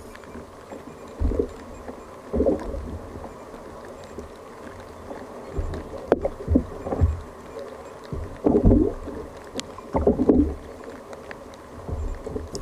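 Sea water slapping and sloshing against the hull of a fishing kayak in irregular surges a second or two apart. There is a steady low rush of wind under them and a couple of sharp clicks.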